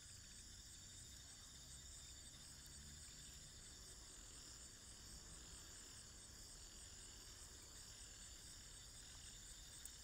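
Near silence: a faint low rumble with a steady, high-pitched chirring above it.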